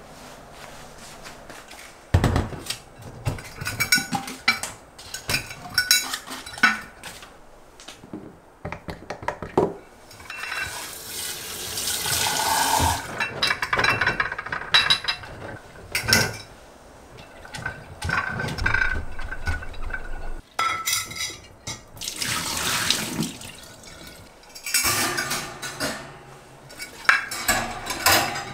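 Glass clip-top storage jars (IKEA Korken, 2 litre) being washed in a stainless steel kitchen sink: sharp glass knocks and clinks at first, then a soapy sponge scrubbing inside a jar and the tap running in several bursts as the jars are rinsed.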